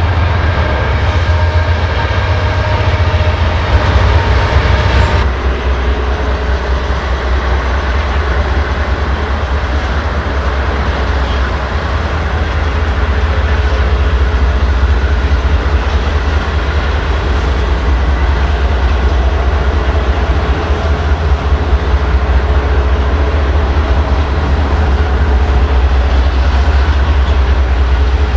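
Freight train passing close by: for about the first five seconds a few steady tones sound over the rumble, then they stop suddenly, leaving the steady rumble of rail cars rolling past.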